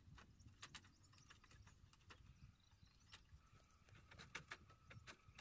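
Near silence with faint, irregular clicks and taps over a low rumble.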